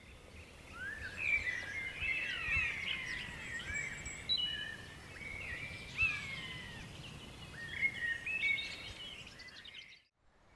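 Woodland birdsong: several songbirds singing and calling over one another, clear whistles and chirps sliding up and down in pitch, over a faint low background rumble. The birdsong fades out just before the end.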